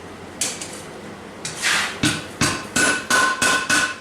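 Hand hammer striking hot leaf-spring steel on an anvil: a couple of separate blows, then an even run of about three blows a second from about two seconds in, with the steel ringing after each blow.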